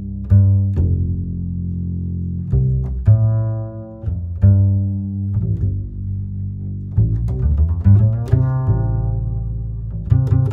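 Background music: low plucked and bowed string notes in a steady rhythm.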